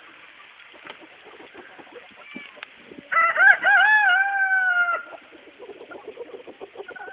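A rooster crows once, about three seconds in: a wavering start, then a long held note that sinks slightly before it cuts off. Faint scattered ticking of hail falling on the ground runs underneath.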